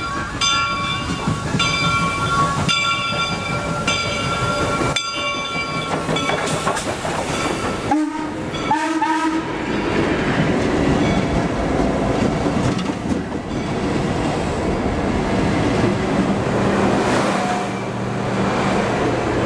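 An approaching locomotive sounds a series of short, pitched whistle blasts over the first six seconds or so. Then an excursion train passes close by, a diesel locomotive followed by passenger coaches, with wheels clattering over the rail joints.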